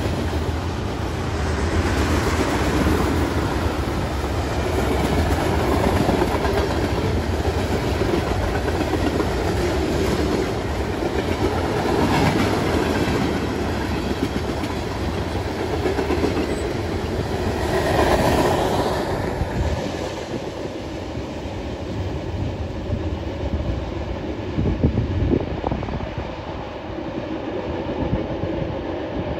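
Freight train's cars, covered hoppers and tank cars, rolling past with a steady rumble of wheels on the rails. The sound eases off about twenty seconds in as the end of the train moves away.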